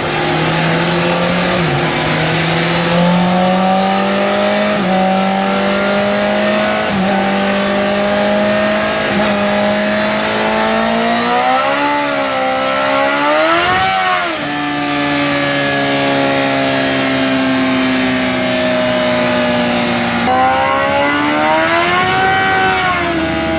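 2017 Honda CBR1000RR Fireblade's inline-four engine with its stock exhaust, running under throttle. Its pitch climbs slowly with small jumps, rises and falls in two quick swells about halfway through, then drops and runs steadier before another rise and fall near the end.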